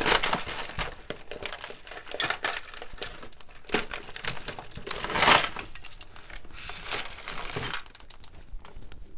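A bagful of mixed costume jewelry pouring out of a plastic bag into a plastic box: many small pieces clattering and clinking against each other, with the plastic bag crinkling. The loudest rush of pieces comes about five seconds in, and the sound thins to scattered clicks near the end.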